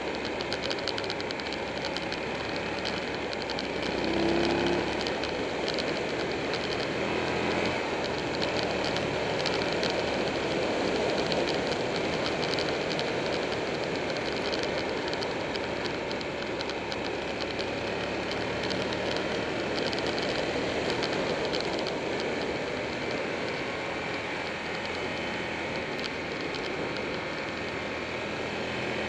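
Wind rushing over a camera on a moving motorcycle, with the Buell 1125R's V-twin engine running underneath. The engine note rises briefly about four seconds in.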